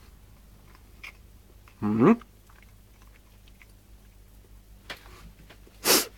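A person chewing a bite of cold-smoked Emmentaler cheese, with small quiet clicks of chewing. About two seconds in comes a short rising 'mm' hum, and near the end a short burst of noise.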